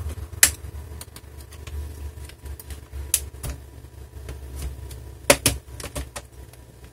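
Plastic clips of a Dell Inspiron 14z laptop's case snapping loose as a pry tool is worked along the seam between the top and bottom halves. Sharp clicks come about half a second in and around three seconds, and a louder pair just past five seconds, with lighter ticks and scrapes between.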